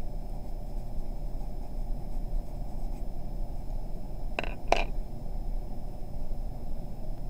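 Steady low hum and hiss of a small room, with two short knocks a little over halfway through as a pencil and a paper workbook are handled on a desk.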